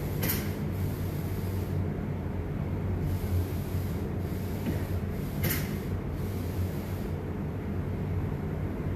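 Spray gun laying on a clear catalysed wood finish, hissing in passes over a steady low hum. The hiss breaks off briefly about two seconds in, flares sharply twice, and fades near the end.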